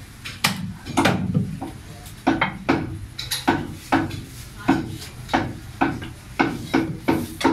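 A butcher's cleaver chopping meat on a thick wooden chopping block, in a series of sharp, irregular blows about two a second.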